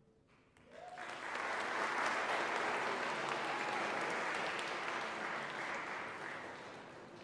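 Audience applauding, swelling in about half a second in, holding steady, then dying away near the end.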